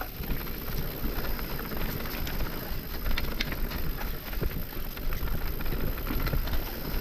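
Wind buffeting the microphone over the rumble of a mountain bike rolling down a dirt trail, with scattered clicks and rattles from the bike and from stones under the tires.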